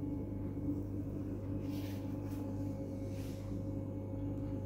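A steady, even hum made of several constant tones, with two brief faint rustles about two and three seconds in.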